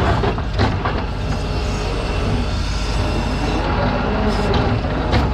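Heavy farm machinery running: a steady low engine drone with irregular knocks and rattles over it.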